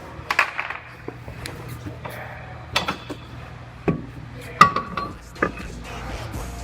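A series of sharp clinks and knocks, like hard objects being handled in a shop, over a steady low hum; the loudest knock comes about four and a half seconds in.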